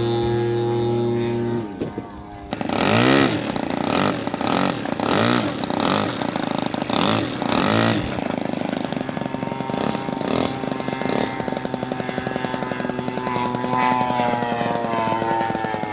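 Radio-controlled model aircraft engines. First a steady engine drone that breaks off just under two seconds in. Then an engine revs up and down about once a second for several seconds, and settles into a fast, even putter that rises a little in pitch near the end as the model taxis.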